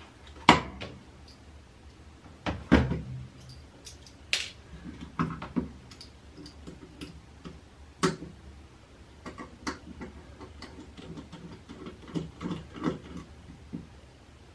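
Clicks and knocks of small plastic and metal parts and tools being handled while a handheld VHF ham radio transceiver is taken apart, with four louder knocks and many light ticks between.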